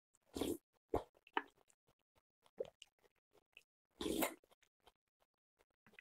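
Slurping ulmyeon noodles and thick, starch-thickened broth off a spoon, twice: once near the start and again about four seconds in. Wet chewing and small mouth smacks come in between.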